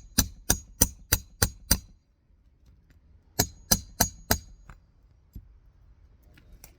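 Hammer striking in quick, even runs on a shingle roof: seven sharp blows about three a second, a pause, then four more, each with a slight metallic ring.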